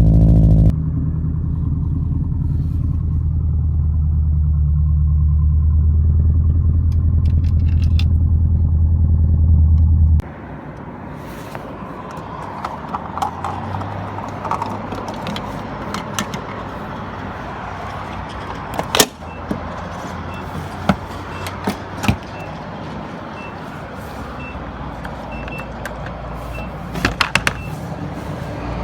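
A car engine running steadily for about ten seconds, then an abrupt cut to quieter outdoor background noise with scattered clicks and knocks.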